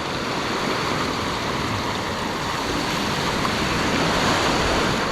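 Ocean surf washing against a rock ledge: a steady rushing of breaking whitewash.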